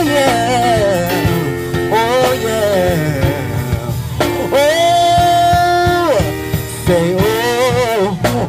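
Live gospel band with drums and keyboard playing under a singer's wordless, wavering runs, with one long held note in the middle.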